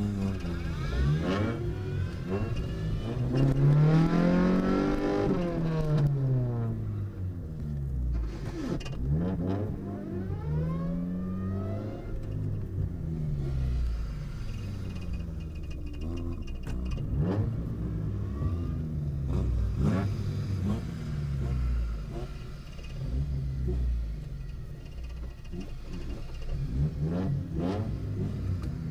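Chevrolet Corsa Classic's four-cylinder engine heard from inside the car, revving up and falling back again and again, its pitch rising and dropping every few seconds.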